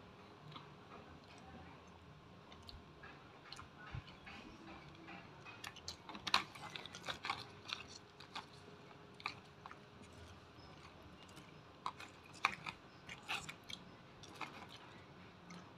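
Chewing and biting of crispy fried batagor, heard as irregular crunches and clicks, thickest in the middle and again near the end. Mixed in are light taps of a plastic spoon against the plastic food box.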